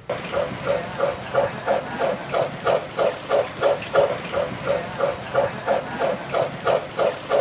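A steady rhythmic sound from a running model railroad layout: evenly spaced pitched pulses, about three a second.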